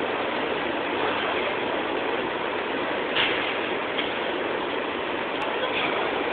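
Steady machine-like running noise, like an engine or generator, with a few brief clicks from about three seconds in.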